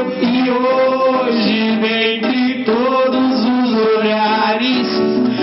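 A man singing into a microphone, his voice sliding and bending between held notes, over acoustic guitar accompaniment.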